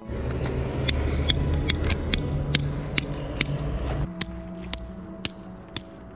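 Hammer driving a tent peg into frozen ground, struck steadily about two to three times a second.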